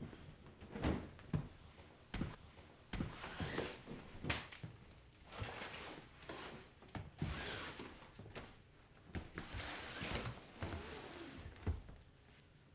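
Bamboo roll-up window blinds being pulled up by their cords: several rustling, sliding swishes, with footsteps and light knocks in between.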